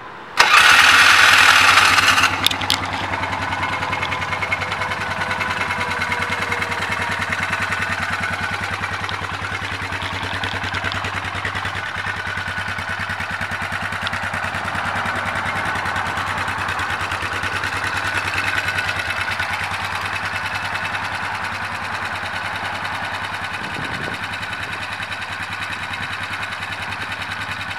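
2012 Polaris Scrambler 500 ATV's single-cylinder four-stroke engine, started with the key: a loud cranking burst of about two seconds, then the engine catches and settles into a steady idle.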